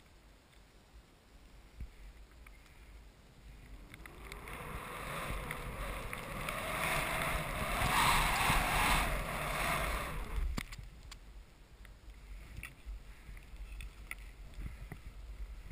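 Skis hissing through deep powder snow, building to a loud rush about eight seconds in and dying away about two seconds later as the skier slows. A sharp knock and a few light clicks follow.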